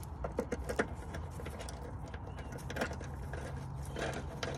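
Scattered light clicks and taps as a copper brake pipe with brass fittings is handled in gloved hands and offered up to a pipe fitting, over a low steady hum.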